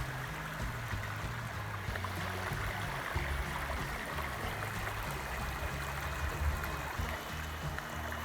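Steady rushing water of the creek and waterfall at Indian Falls, with background music underneath carrying low notes that step in pitch.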